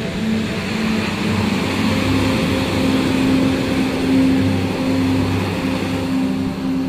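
Surf breaking and washing up a sandy beach, swelling to its loudest partway through, mixed with ambient background music of long, low held notes.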